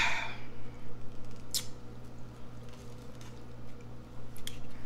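A breathy exhale right after drinking soda from a paper plate, then a few faint mouth clicks, over a steady low hum.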